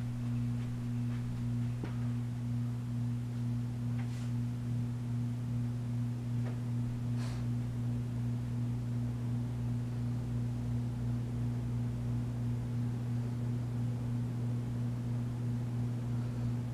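Vintage Hunter Original (Robbins & Myers) cast-iron ceiling fan running on high speed: a steady low electrical hum from the motor, pulsing gently, with a couple of faint ticks.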